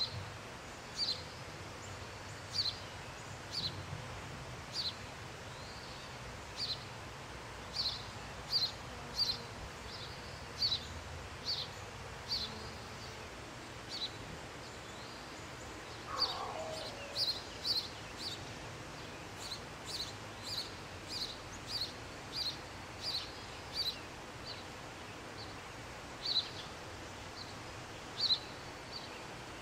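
House sparrow nestling begging for food: short, high chirps repeated one to two times a second, thinning out for a few seconds near the middle. A brief falling sound comes about halfway through.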